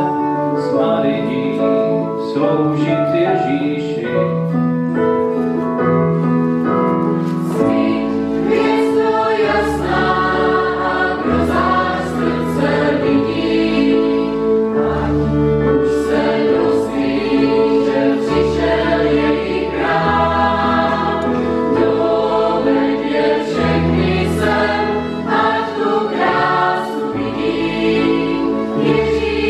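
Mixed choir singing a Czech Christmas hymn to Saint Joseph, accompanied by keyboard, violin, acoustic guitars and bass guitar; low bass notes come in about eight seconds in.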